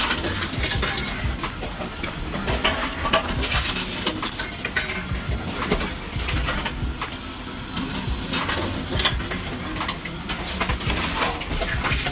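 Reverse vending machine taking in empty drink cans and plastic bottles one after another: repeated knocks and clatters of the containers being fed in and handled, over a low steady mechanical hum.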